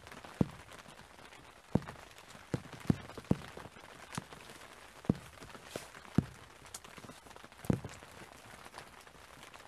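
Raindrops striking the camera or something close to the microphone in light rain: irregular sharp ticks, roughly one a second, over a faint steady outdoor background.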